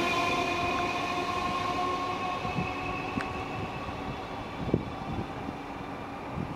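Electric multiple-unit train moving away, its whine of several steady tones fading gradually. A few short low thumps come near the end.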